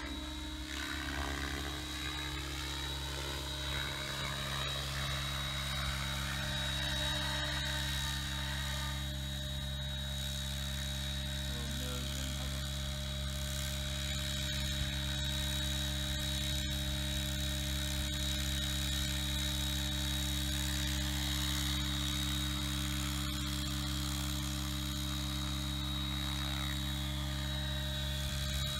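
Align T-Rex 700E electric RC helicopter in flight: a steady high electric-motor whine over the low hum of its spinning rotors, slowly growing louder.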